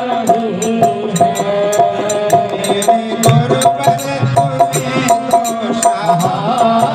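Hindi devotional bhajan to Shiva: a man singing with held notes over a melody accompaniment, with small hand percussion keeping a steady beat.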